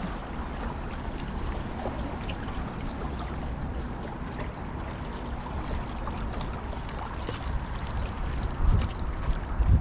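Wind buffeting the microphone over small waves lapping at the shore: a steady low rumble and wash, with a couple of louder low thumps near the end.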